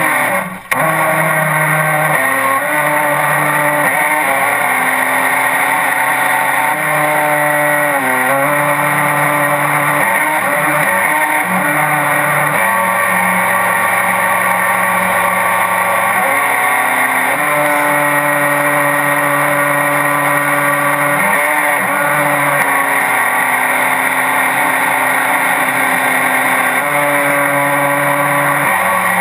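RC speed boat's motor running loud, heard from a camera on the boat itself, its pitch shifting up and down in steps and dropping lower for a few seconds around the middle.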